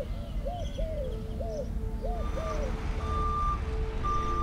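A vehicle's reversing alarm beeping about once a second, starting about halfway, over a steady low engine rumble. Before it, a bird calls with a quick run of short rising-and-falling notes.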